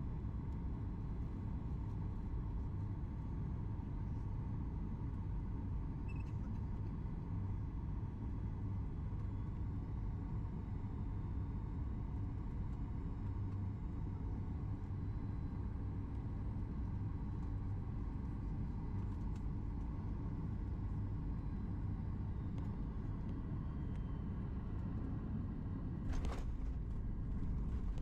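Steady low rumble heard inside the cabin of a Boeing 737 MAX 8 on the ground after landing, its engines running at low power with a faint steady whine. A single sharp click comes near the end.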